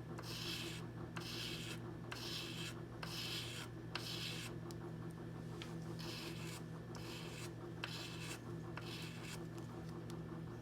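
Tips of stainless steel tweezers being stroked up and down on fine-grit sandpaper over a flat glass tile, a dry rasping scrape at about one and a half strokes a second. The strokes pause briefly a little before the middle and die away near the end. A steady low hum runs underneath.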